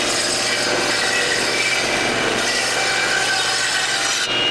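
Rockwell 9-inch table saw ripping lengthwise through a log in a resaw pass: a loud, steady cutting noise from the blade working in the wood, shifting slightly in tone near the end.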